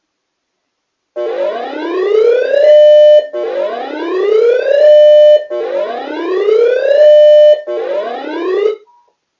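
Electronic alert siren sounding four rising whoops, each one sweeping up in pitch, holding briefly at the top and cutting off, about every two seconds.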